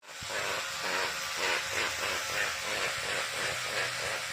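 Toothbrush bristles scrubbing back and forth in a quick regular rhythm, about three strokes a second, over a steady low hum.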